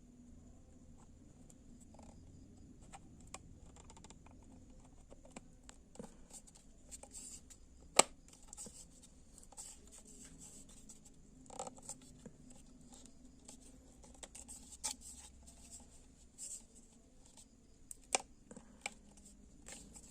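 Scattered clicks and scraping of a light bulb's plastic casing and parts being handled and pressed shut, with one sharp click about eight seconds in.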